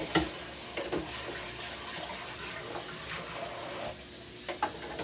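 Kitchen tap running water into the sink, easing off about four seconds in, with a few sharp knocks.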